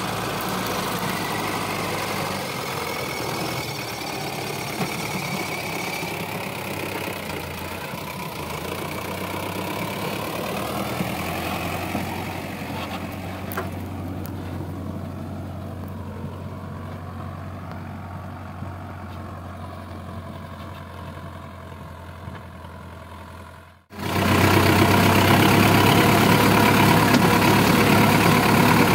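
Sonalika DI 750 diesel tractor engine running steadily while pulling a heavily loaded trolley, slowly growing fainter. Near the end, after a brief break, the engine is heard much louder and closer.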